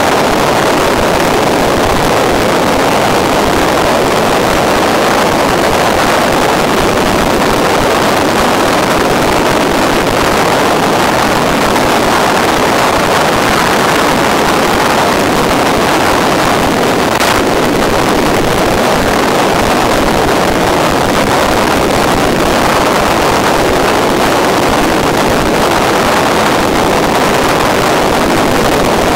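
A loud, steady rushing noise with no pitch to it, carried on the FPV plane's video-link audio in flight. It holds an even level throughout, with no motor whine or other event standing out.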